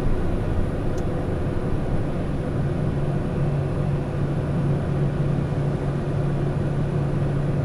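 Pilatus PC-12 NGX's single turboprop engine and propeller at takeoff power, a steady drone with a low hum, heard from inside the aircraft as it rotates and lifts off.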